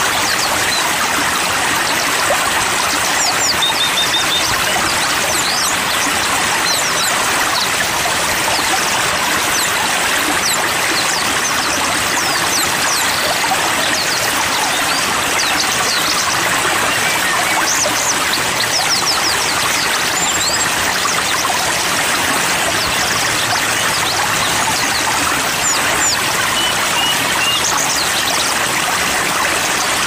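Steady rush of flowing water from a stream or small waterfall, with many short, high bird chirps and quick whistles scattered over it.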